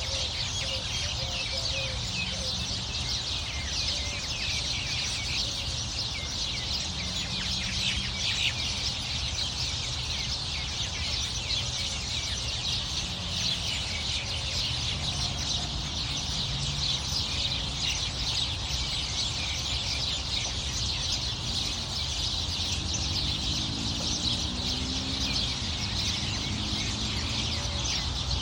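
Dense, continuous chorus of many small songbirds chirping and singing together in trees, a busy overlapping chatter of quick high notes with no pause.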